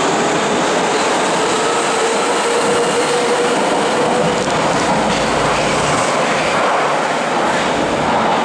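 Nagoya Municipal Subway 5050-series train running past the platform in an underground station: steady wheel-and-rail rumble and hiss, with a steady whine in the first half.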